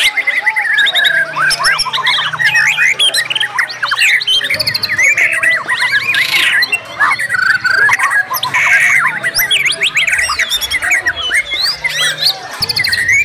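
Several white-rumped shamas (murai batu) singing at once in a dense, continuous chorus of fast whistled sweeps, trills and sharp, loud 'shot' notes, including phrases mimicked from other birds.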